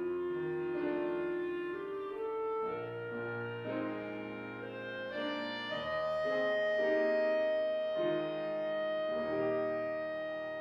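Clarinet playing a classical melody with piano accompaniment, moving through a phrase of stepwise notes and settling on one long held note about halfway through.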